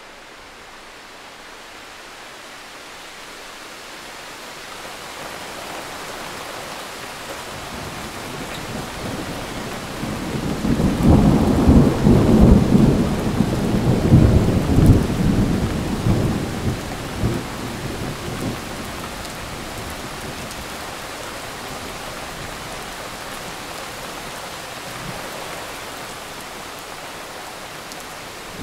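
Thunderstorm: rain falling steadily and slowly growing louder, with a long roll of thunder about ten seconds in that rumbles for several seconds before fading back to the rain.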